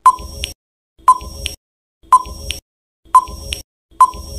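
Countdown timer sound effect: five short beeps, one a second.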